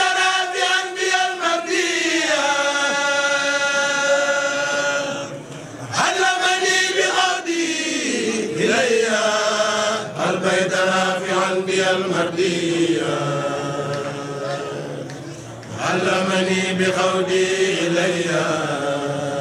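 Arabic religious poem chanted in long, drawn-out melodic phrases, a Mouride xassida, with short breaks about five and fifteen seconds in.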